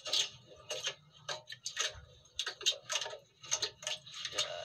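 Irregular sharp clicks and small splashes, roughly three a second, from water slapping around a camera held at the water surface.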